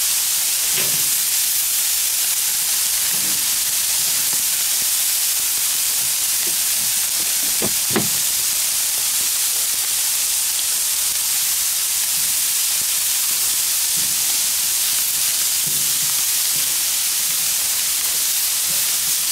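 Chopped carrots, sweet potatoes, broccoli and maple sausage links sizzling steadily on a hot gas flat-top griddle. A brief knock about eight seconds in.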